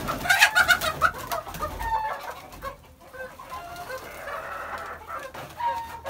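Young Golden Misri desi hens clucking and squawking as they are tipped out of plastic crates, with wing flapping and crate rattling, loudest in the first second.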